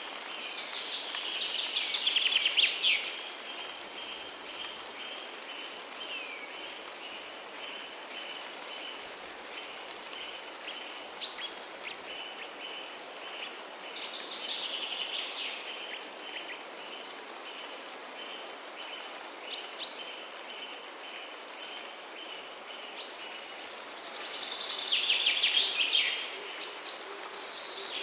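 A songbird sings a fast, trilling phrase about two seconds long three times, over a steady hiss and a high note that repeats evenly.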